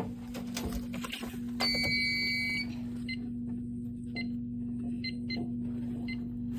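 Fire alarm control panel's keypad beeper: one steady beep of about a second, then five or six short key-press beeps as the panel's menus are stepped through, over a steady low hum.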